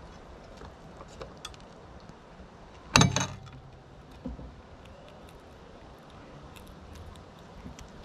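A sharp, loud knock with a short rattle about three seconds in, a smaller knock about a second later, and scattered faint clicks and ticks throughout.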